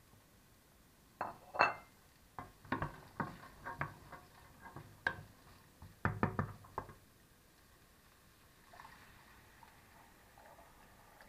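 A wooden spoon stirs peas in a stainless steel pot, giving a run of knocks and clatter against the pot. About three-quarters of the way through, water is poured in from a glass jug, a faint pouring sound.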